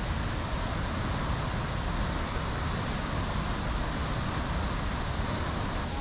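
Steady rushing roar of a waterfall, an even noise with a deep rumble beneath it.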